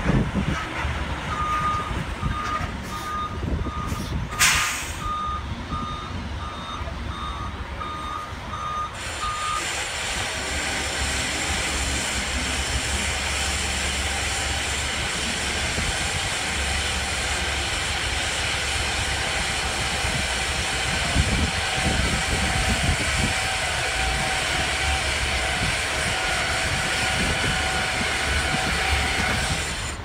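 Backup alarm beeping in a steady rhythm, about one and a half beeps a second, for the first nine seconds or so, with a short sharp air-brake hiss a few seconds in. Then a diesel truck engine runs up and holds at high speed, a steady hum with a whine over it, as the end-dump semi-trailer's bed is raised to tip its load.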